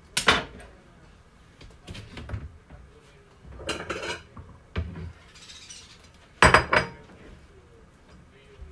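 A kitchen knife and a plate being handled on a countertop and plastic cutting board: several separate knocks and clinks, the loudest about three-quarters of the way through.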